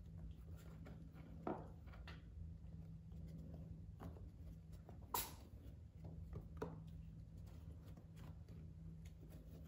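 Kittens pawing and scrambling at a cardboard box: faint scuffs and soft taps, with one sharper tap about five seconds in, over a steady low hum.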